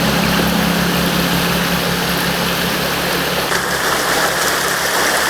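An engine running steadily, with a low hum under an even rushing noise.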